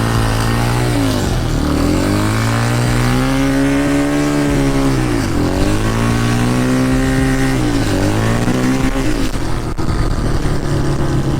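Dirt bike engine under way, revving up and shifting up: the pitch climbs, falls sharply at each shift and climbs again, with dips about a second and a half in, after about five seconds and near eight seconds.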